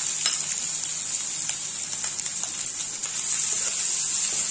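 Chopped onions sizzling steadily in hot oil in a kadai, a high, even hiss with a few light clicks scattered through it.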